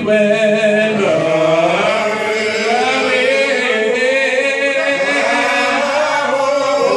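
A man singing solo into a handheld microphone, drawing out long held notes that slide slowly from pitch to pitch.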